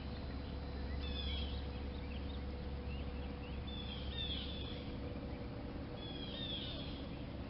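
Small birds chirping in three short bursts of quick, falling notes, about one, four and six and a half seconds in, over a steady low outdoor rumble.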